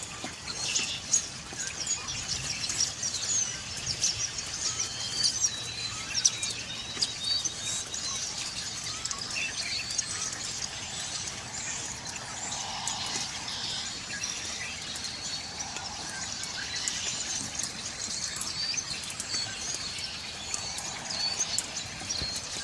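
Mixed flock of feeding songbirds, with starlings, red-winged blackbirds and robins among them, chirping and singing all at once: a dense chorus of overlapping high chirps, whistles and ticks.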